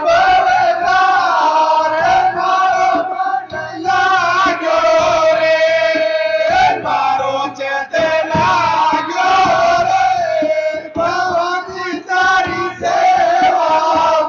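A Hindu devotional song to the Mother Goddess (a jas) sung with musical accompaniment, the melody bending up and down in long held notes.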